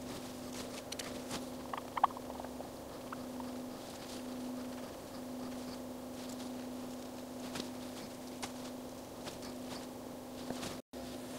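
Faint handling noise of a glass telescope lens being wiped with a cotton ball and picked up by gloved hands: soft rubbing with scattered small clicks, the sharpest about two seconds in, over a steady low hum.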